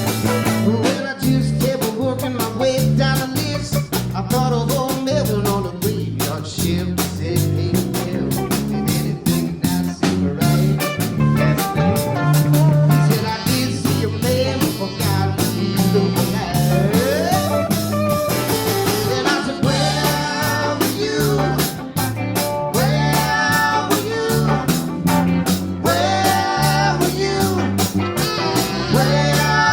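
Live rock band playing an instrumental passage: electric guitar lead lines with bends over a steady drum kit beat and a moving bass line.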